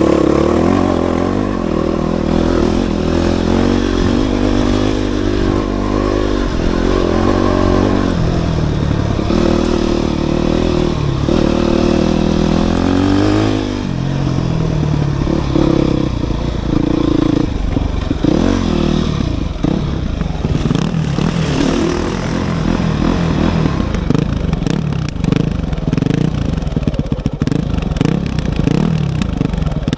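Dirt bike engine being ridden, its pitch climbing and dropping again and again as the throttle opens and closes. Near the end it turns choppy, with knocks and rattles from the bike.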